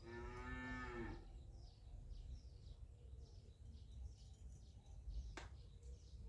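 A cow mooing once, a single call about a second long at the start, with small birds chirping throughout and a sharp click near the end.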